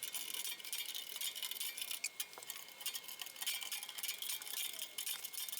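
Faint, light metallic clinks and ticks, many in quick irregular succession: the sheet-metal tool chest being handled and inspected.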